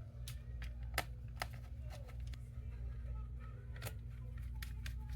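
Scattered light clicks and taps of plastic and metal parts being handled as a laptop battery is fitted into place, over a steady low hum.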